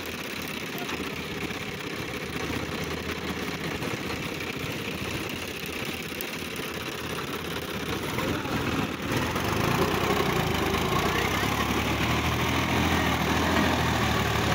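Sonalika DI 750 III tractor's diesel engine idling steadily. About two-thirds of the way in it gets louder and works harder as the tractor moves off hauling its loaded trolley.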